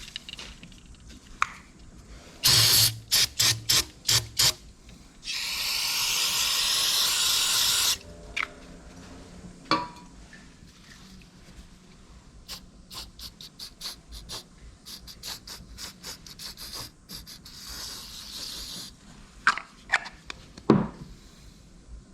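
Aerosol can of dye penetrant: a run of short sharp spray bursts, then one long hissing spray of nearly three seconds, and a shorter, softer spray near the end, with scattered small clicks and knocks between. The penetrant is being sprayed onto a cracked cast engine block to show how far the crack runs.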